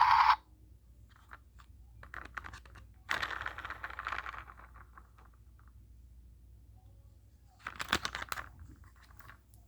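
A toy helicopter's electronic sound cuts off just after the start, then plastic toy parts click and rattle as they are handled, in two louder bursts about three and eight seconds in.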